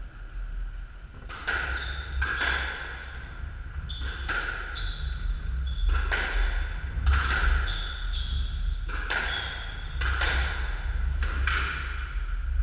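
Squash rally: the rubber ball smacked by rackets and off the court walls about once a second, each hit ringing briefly in the court, with short high squeaks of shoes on the wooden floor between hits over a steady low hum.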